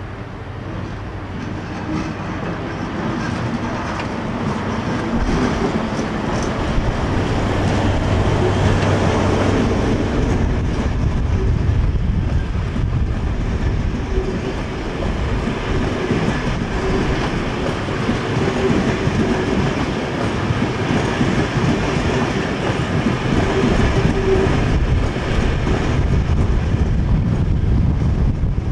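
DB class 601 TEE diesel-hydraulic multiple unit passing close by, its wheels running over the rails and its engines droning. The sound grows louder over the first several seconds as the lead power car approaches, then stays loud and steady with a low rumble and a steady hum as the coaches and the rear power car go past.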